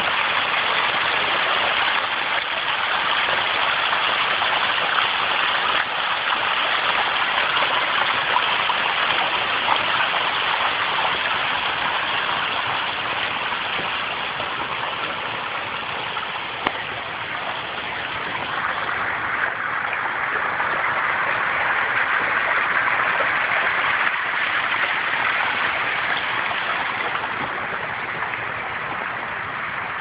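Water from a small pondless waterfall splashing and trickling down over rocks, a steady even rush, with one brief click partway through.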